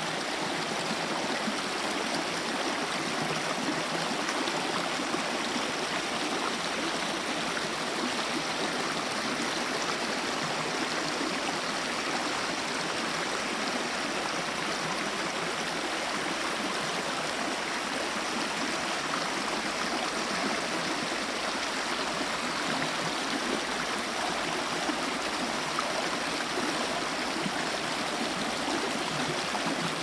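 Shallow stream rushing and splashing over rocks and a small drop, a steady, unbroken water sound.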